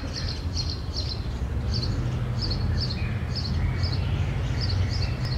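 Street ambience: a steady low rumble of traffic, with a small bird giving short, high chirps over and over, about two a second.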